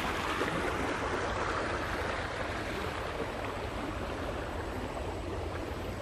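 Small stream of water babbling and splashing over rocks, a steady rush that grows slowly fainter.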